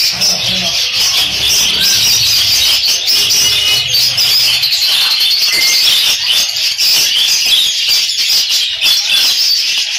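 Dense, continuous chattering and chirping of many caged budgerigars and other small parrots, all calling at once.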